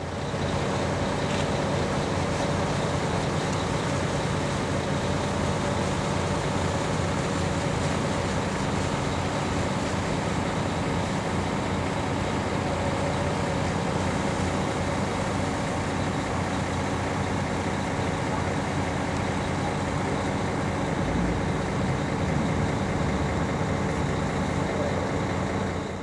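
Steady engine drone of a boat: a cruise-ship tender's engine running as it motors across the fjord toward the dock.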